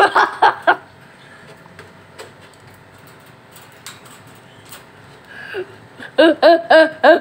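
A person laughing in quick repeated bursts near the end, after a brief voiced outburst at the start. Faint clicks and taps in between.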